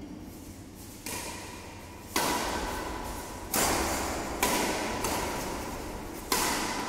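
Badminton rackets striking a shuttlecock in a rally: five sharp hits, one to two seconds apart, each ringing on in the echo of a large, bare hall.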